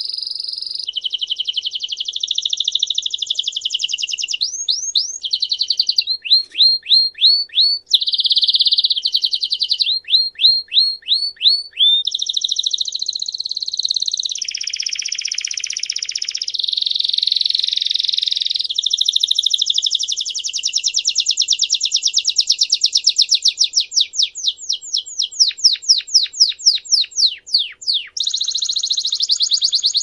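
A male Belgian canary singing a continuous song of long, fast trills and rolls. These alternate with runs of repeated downward-sweeping whistled notes, about four a second.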